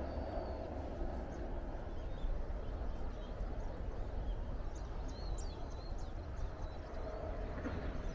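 Outdoor ambience: a steady low rush of noise with a few faint, high bird chirps about halfway through.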